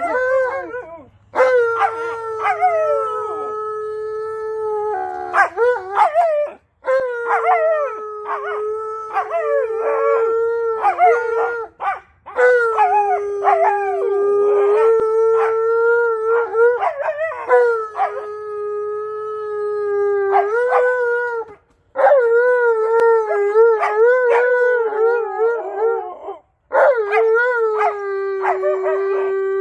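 An Alaskan malamute and a white Siberian husky howling together. It is a string of long howls, each held on a steady pitch for a few seconds with wavering starts and ends, broken by short pauses, and at times the two voices overlap.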